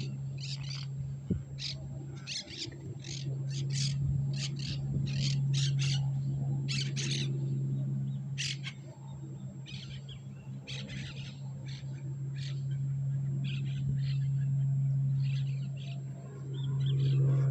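Birds calling with short, sharp chirps, about one or two a second, over a steady low hum.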